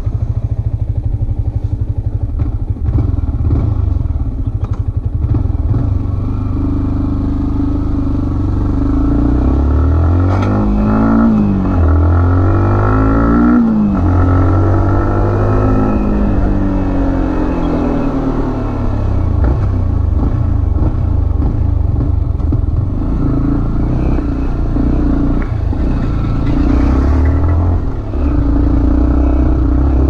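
Yamaha MT-15's 155 cc single-cylinder engine running under way. Its revs rise and fall a few times in the middle, as the rider opens and closes the throttle, and the engine note is steadier before and after.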